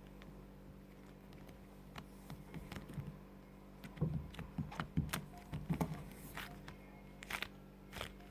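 Hands squishing and stretching soft slime-like modelling clay, giving irregular soft squelches and small clicks from about two seconds in until near the end, over a steady low hum.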